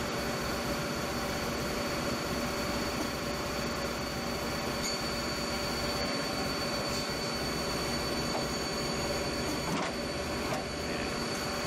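Mazak Multiplex 4200 CNC lathe running: a steady mechanical hum with a high, even whine on top and a couple of faint clicks.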